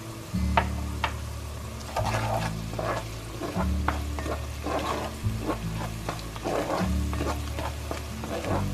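Minced garlic and diced onion sizzling in melted butter in a cast iron pot, stirred with a wooden spoon in irregular scraping strokes. Background music with a low bass line plays underneath.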